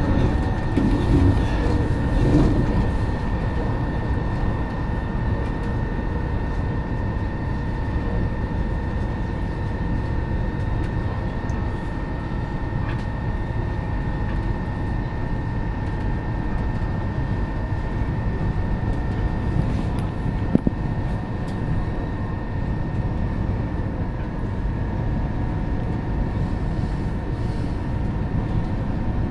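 Alstom Coradia Nordic X61 electric commuter train heard from inside the carriage, cruising: the traction motor whine holds as two steady tones over the rumble of wheels on rail. A single sharp click sounds about twenty seconds in.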